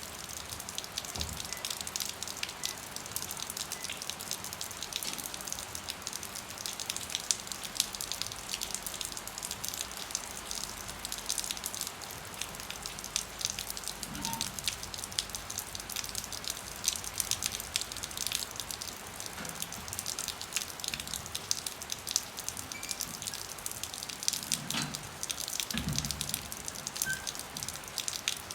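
Rain falling, a dense steady spatter of many small drop impacts on a surface, with a few soft low thumps in the second half.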